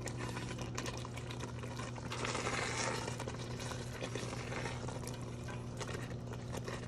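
Pot of pasta in tomato sauce simmering and being stirred, the spoon clicking and scraping against the pot, with a brief louder rush of noise about two seconds in, all over a steady low hum.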